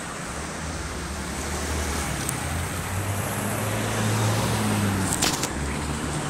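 Road traffic on a multi-lane street: cars and a motorcycle passing, engines and tyres growing louder as a vehicle draws close, with a few sharp clicks near the end.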